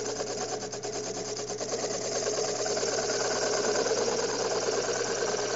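Wood rasp scraping against a wooden drum spinning in a drill press, over the steady hum of the drill-press motor. The rasp is truing the drum, which is not spinning perfectly true.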